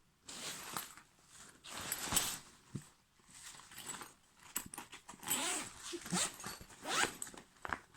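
Zippers on a backpack being pulled along its pockets several times in separate strokes, with the bag's fabric handled and rustling between pulls.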